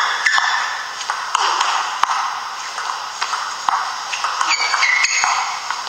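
Table tennis rally: the celluloid ball clicks sharply off the bats and the table in a quick, uneven run of hits, over a hiss of hall noise.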